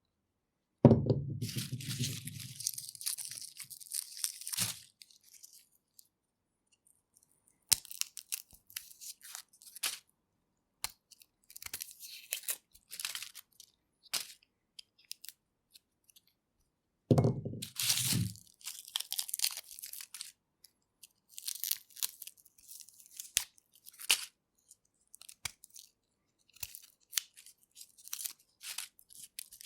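Garlic being peeled: dry papery skins crackling and tearing in short, separate rustles with quiet gaps between. Two louder crunches, about a second in and about seventeen seconds in, as a clove is cracked or pulled apart.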